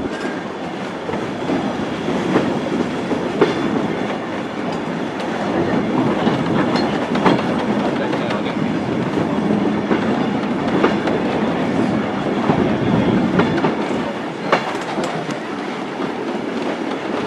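Train running along jointed track, heard from on board: a steady rumble of wheels and running gear, with sharp irregular clicks as the wheels pass over rail joints.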